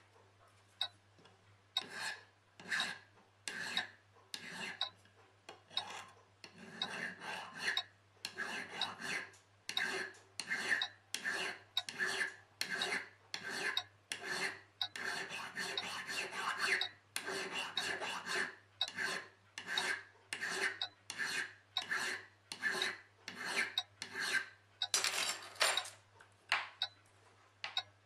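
A hand file is rasping in steady back-and-forth strokes on a small metal part clamped in a bench vise, a little more than one stroke a second. The part is a watch-case fly spring being shaped. Near the end comes one longer, higher-pitched stroke.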